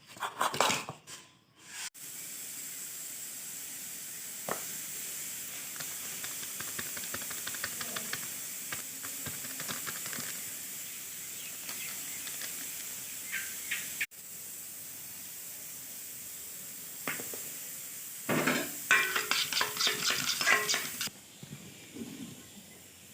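Egg paratha frying in oil in a pan, with a steady sizzle and scattered small crackles. Near the end come louder clinks and scrapes of a utensil against the pan.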